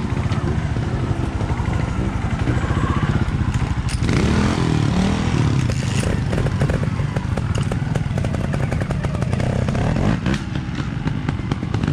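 Trial motorcycle engines running, one idling with a steady low beat throughout, revved up and back down once about four seconds in as a rider practises a wheelie.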